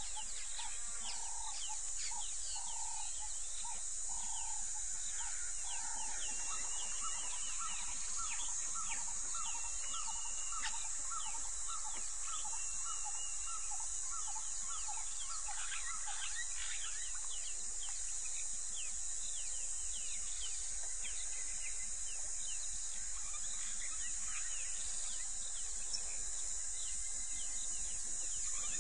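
An outdoor bush chorus: a steady high insect drone, with many short chirping calls over it. In the first half there are runs of evenly repeated short calls, about two a second.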